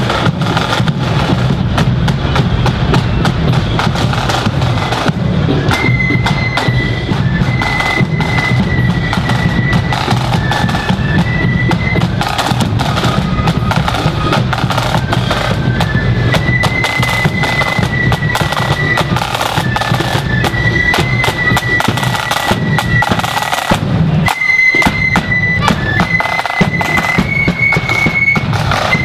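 Marching flute band playing a tune: a melody on flutes over steady snare and bass drum beats.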